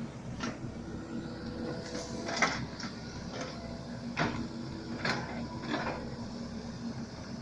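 Mini excavator working: a steady low machine hum with several sharp clanks and knocks.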